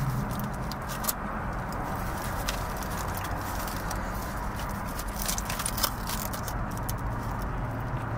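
Eating a foil-wrapped burrito with tortilla chips inside a car: scattered short crunches and crinkles of chips and foil over a steady low cabin hum.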